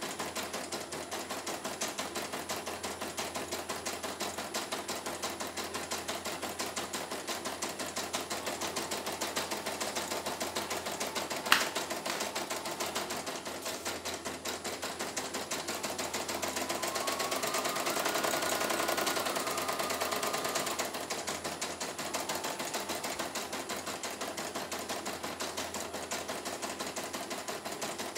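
CNY E900 computerized embroidery machine stitching, its needle running in a fast, steady rhythm, running smoothly without thread breaks. A single sharp click comes about eleven seconds in, and from about seventeen to twenty-one seconds the machine gets louder while a whine steps up in pitch and back down.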